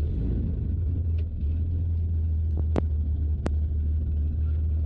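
Air-cooled flat-six Corvair aircraft engine of a Zenith 601 idling just after start with the propeller turning, a steady low drone while the cold engine warms up. A few sharp clicks sound around the middle.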